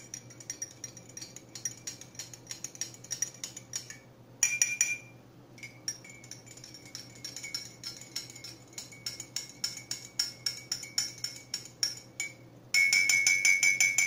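Metal spoon stirring coffee in a glass mug, clinking again and again against the glass, which rings. A louder burst of clinks comes about four seconds in, and a fast, loud run of clinks near the end.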